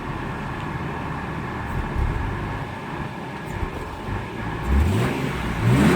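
1998 BMW M3 E36 straight-six engine idling just after starting, then revved twice near the end, pitch rising and falling each time. The owner says it doesn't sound too good.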